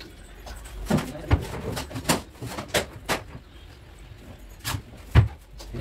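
Irregular wooden knocks and clicks from a built-in wooden wardrobe's doors being handled and fitted, about eight sharp strikes, the loudest near the end.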